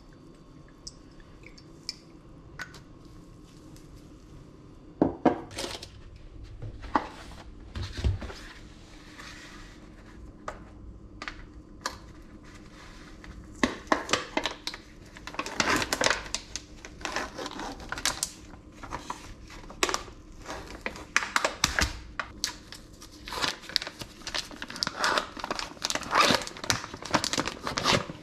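Plastic food packaging crinkling and tearing as packets are opened and a plastic film is peeled off a tray, in dense bursts through the second half. Before that, a few scattered knocks and clicks.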